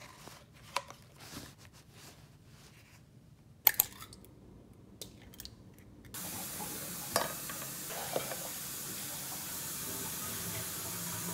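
Eggs frying in a non-stick pan: a steady sizzle sets in about halfway through, with a couple of light knocks in it. Before it, a few soft clicks and taps, with one sharp click about a third of the way in.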